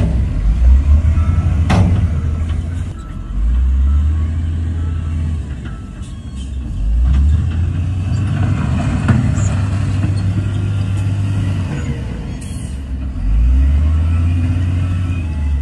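Heavy diesel machinery running, a low rumble that swells and eases several times, with a couple of sharp knocks in the first two seconds.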